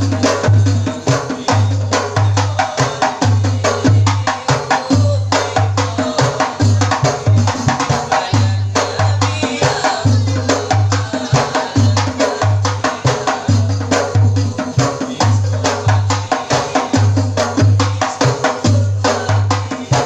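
Hadroh ensemble playing an instrumental passage: fast, interlocking hand strokes on rebana frame drums over a steady, repeating pattern of deep bass-drum beats.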